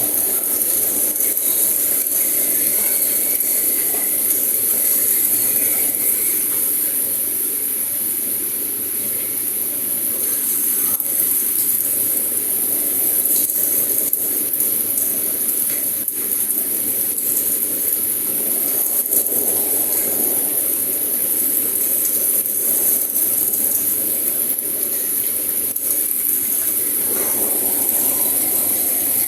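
Steady hissing noise, strongest in the high range, over a lower rushing sound, with faint crackles now and then.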